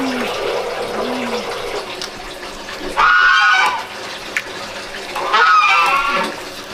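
Steady rush of running water, with two loud bird calls about two seconds apart, each lasting under a second.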